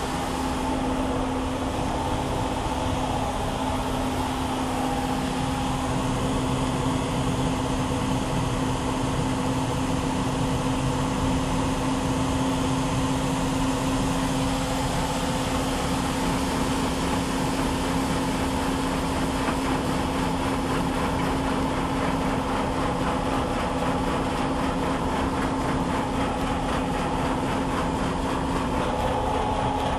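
Combine harvester running steadily: a constant engine hum with a held tone and no change in speed.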